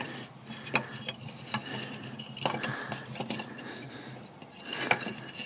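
Split firewood being fed by hand into a small steam boiler's firebox, the pieces knocking and clinking against the metal firehole and the wood already burning inside. The knocks come irregularly, a handful of them, with a louder cluster near the end.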